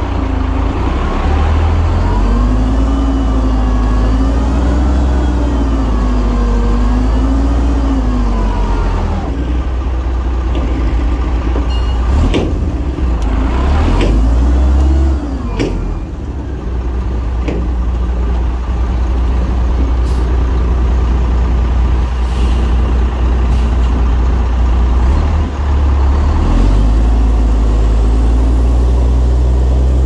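Heavy diesel earthmoving machinery running steadily. A wavering whine runs through the first nine seconds or so, and several sharp knocks come around the middle.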